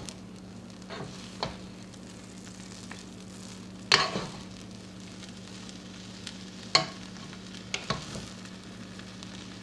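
Two wooden spatulas tossing pancit bihon rice noodles in a pan, with a soft, steady sizzle and several sharp knocks of wood against the pan. The loudest knocks come about four seconds in and again near seven seconds.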